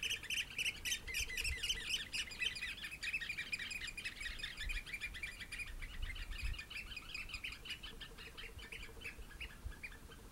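Eurasian oystercatchers giving a rapid, continuous series of shrill piping calls, several birds overlapping. The piping is loudest at first and fades toward the end.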